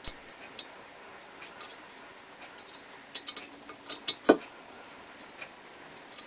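Small metal clicks and taps of a hex key working the nut on the cutter head of a Lyman Universal case trimmer as the nut is loosened. The clicks are scattered and faint, with a few together about three to four seconds in and one sharper click just after.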